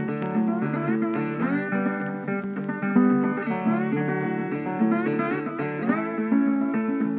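Background music: a guitar playing a melody, with some notes sliding in pitch.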